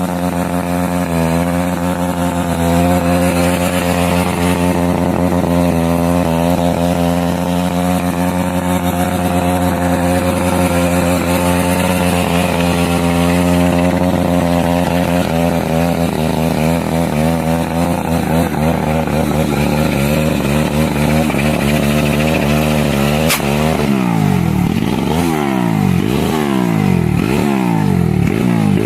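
Small pit bike engine running at a steady speed for most of the time. Near the end a sharp click is heard, then the engine is revved repeatedly, its pitch rising and falling with each blip of the throttle.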